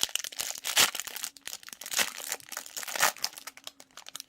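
Plastic wrapper of a trading-card pack crinkling and tearing as it is opened by hand, with louder rustles about one, two and three seconds in.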